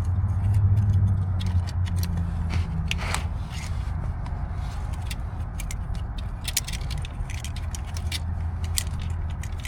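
Light clicks, rattles and scrapes of a new injector wiring harness and its connectors being fed by hand into a Detroit Series 60 cylinder head. A steady low hum runs underneath, louder for the first couple of seconds.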